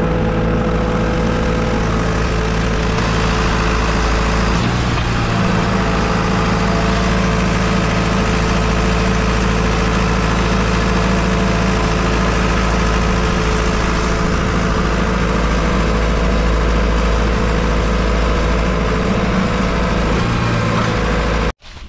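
Tractor engine running steadily under a thin high whine, its note shifting briefly about five seconds in. The sound cuts off abruptly just before the end.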